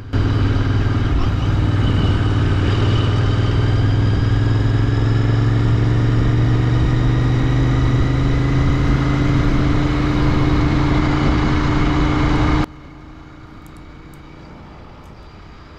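Royal Enfield Interceptor 650's parallel-twin engine pulling steadily on the highway, its note rising slowly as the bike gains speed, with wind rush over it. Near the end the sound drops suddenly to a much quieter steady rumble.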